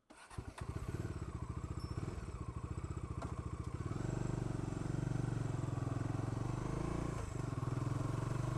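Bajaj Dominar 350 single-cylinder engine, its timing chain tensioner freshly replaced, starting up and running with an even pulsing beat. It gets a little louder from about four seconds in.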